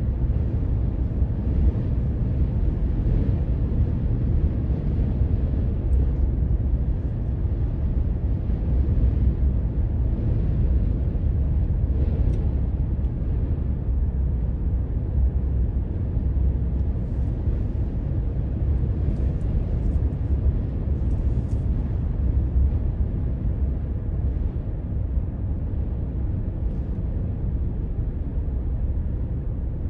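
Steady low rumble of a car driving, heard inside the cabin: engine and tyre noise on wet pavement.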